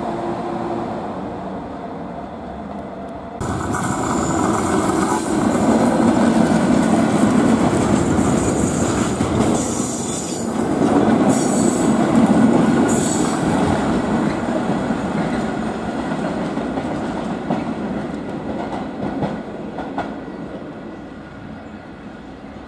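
Class 73 electro-diesel locomotives hauling a railhead treatment train pass close along a platform. Wheels and wagons rattle and squeal over the rails, loudest in the middle, then fade as the train pulls away. For about the first three seconds, before this, another locomotive approaches with a steadier hum.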